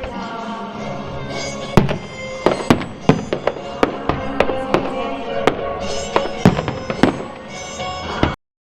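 Fireworks shells bursting in quick, irregular succession, a dozen or more sharp bangs over music playing underneath. All sound cuts off suddenly near the end.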